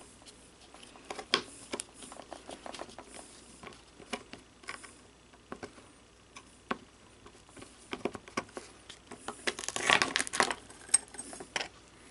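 Small steel gun-lock parts and a screwdriver clicking, tapping and scraping on a work surface as the last pieces of a musket lock are taken off and laid down, with a dense run of clatter about ten seconds in.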